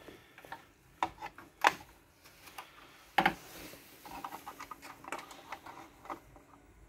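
Handling noise as a USB riser cable is routed along an aluminium mining-rig frame and plugged into a PCIe riser card: a few sharp clicks and knocks, the loudest about three seconds in, then a run of light rattling and rubbing.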